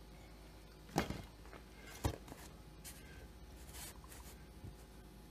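Workbench handling sounds as a chainsaw crankcase and a wooden block are moved on a rubber bench mat: two knocks about a second apart, then lighter clicks and a brief rustle, and a soft tap near the end.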